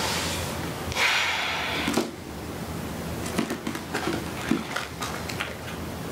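A paperback book being handled. A soft rustle about a second in ends with a tap, then come a few light page flicks and taps, over a steady low room hum.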